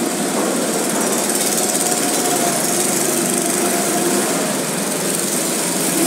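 Go-kart engines running as several karts lap the track, a steady buzzing din with a faint engine pitch that rises and falls as karts go by.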